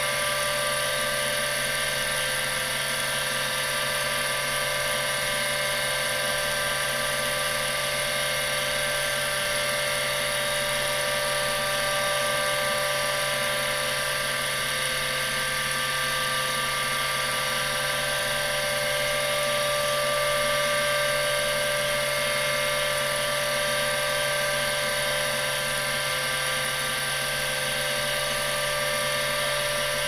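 Seagate ST-412 10 MB full-height MFM hard drive running steadily under a random-access seek test, its stepper-driven heads seeking continuously over the whine of a noisy, worn spindle.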